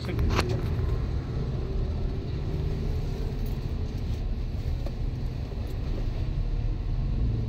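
Truck's diesel engine idling steadily, heard from inside the cab as a low, even rumble.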